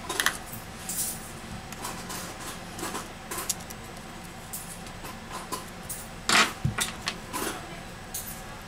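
Thin metal pry blade scraping and clicking along the edge of a bent Huawei Mate 9's metal frame as the phone is pried open: scattered small clicks and short scrapes, the loudest a brief scrape a little after six seconds in.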